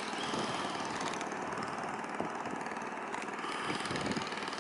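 Small engine of a vỏ lãi long-tail boat running steadily.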